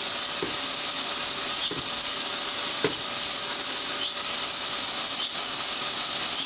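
Vacuum cleaner running steadily with an even rushing noise, with a few faint short knocks, the sharpest about three seconds in.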